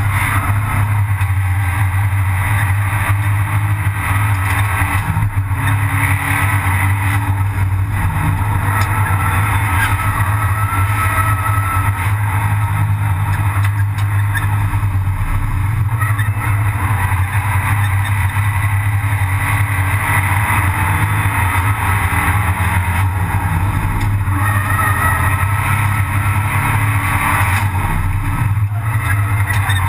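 Abarth 500 Assetto Corse's turbocharged 1.4-litre four-cylinder engine running hard under race load, heard from inside the stripped cabin, loud and steady with a few brief dips.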